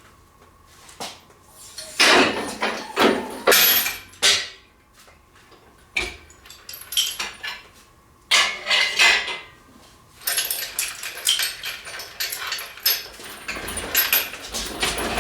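Metal tools and small parts clattering and clinking in a shop tray, in several separate bursts, then clinking almost without a break over the last few seconds.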